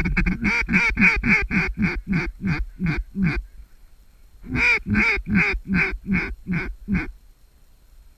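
Mallard duck call blown in quick runs of quacks: about a dozen notes that fade as they go, then after a short pause about nine more, loud and close.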